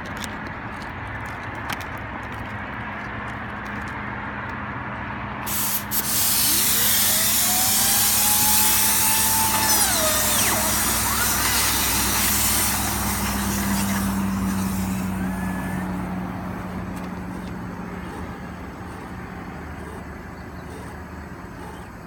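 Compressed air rushing through a high-velocity reverse spinning-ball dryer-vent cleaning tool: a loud hiss starts suddenly about five seconds in, with a whine that rises in pitch, holds, then drops away. The hiss fades over the last several seconds, over a steady low hum.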